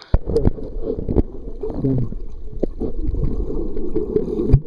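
Muffled water sloshing and gurgling around a waterproof camera at or below the lake surface, cut off above the low range, with scattered knocks.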